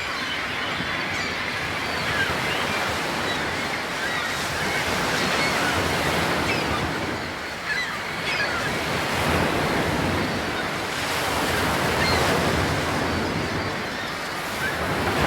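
Ocean surf washing in, a steady rushing noise that swells and eases every few seconds, with faint short chirps over it.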